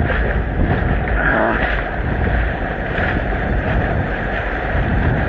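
Sea surf washing and breaking around a swimmer, with wind buffeting the camera microphone: a loud, steady rush with a heavy low rumble.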